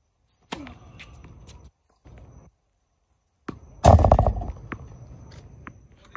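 A tennis serve struck with a racket about half a second in, then a heavy thump and rattle right at the microphone about four seconds in as the camera is knocked and shaken.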